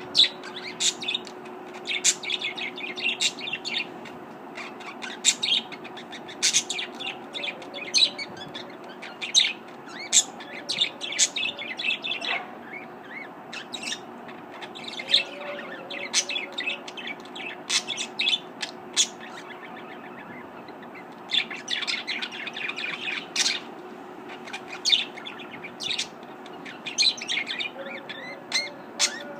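Budgerigars chirping and warbling in runs of quick high chirps with short pauses between, over a faint steady hum.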